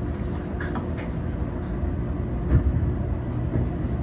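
Tokyo Metro 05 series commuter train running, heard inside the driver's cab: a steady low rumble with a few knocks from the wheels on the track, the loudest about two and a half seconds in.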